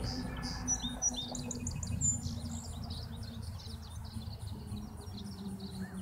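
Several songbirds chirping and twittering in a summer meadow, with a faint, even high ticking about four times a second. A low distant rumble fades away in the first few seconds.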